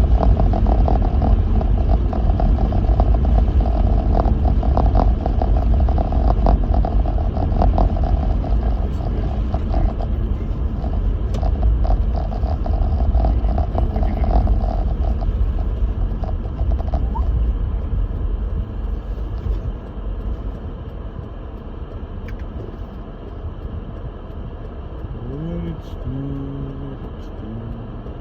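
Lexus GX470 SUV driving through deep snow, heard inside the cabin: a loud low rumble with crackling from the tyres and body over the snowy road. It eases after about two-thirds of the way through as the vehicle slows. Near the end a short rising tone settles into a steady pitched hum.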